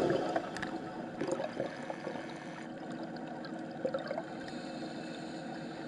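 Background music fades out in the first moment, leaving muffled underwater ambience in a camera housing: a steady wash of water noise with scattered small clicks and a few short bubbly bursts.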